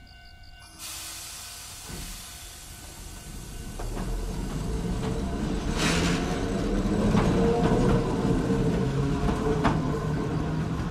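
Ueda Kotsu Moha 5252 'Marumado' electric railcar pulling away from the station. A hiss starts about a second in. Then the rumble of the car grows louder as it gathers speed, with a few sharp clacks.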